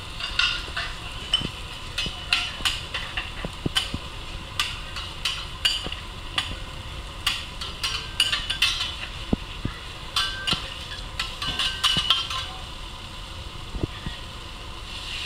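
Knife and metal spatula clacking and scraping on a steel teppanyaki griddle as meat is chopped into pieces, in quick irregular strikes that thin out near the end, over the sizzle of the meat frying.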